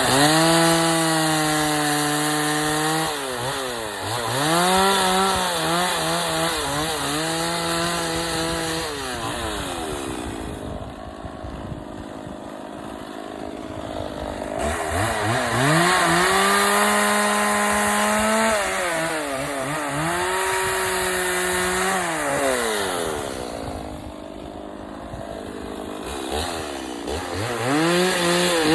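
Gas chainsaw cutting into wood to round off the edges of a log carving. It runs at high revs in long stretches, drops back to idle about ten seconds in and again near the end, and revs back up each time.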